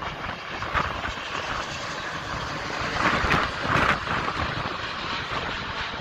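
Jet engines of a twin-engine widebody airliner on approach with its gear down, passing low overhead. A steady rushing roar swells about three seconds in as the aircraft goes over.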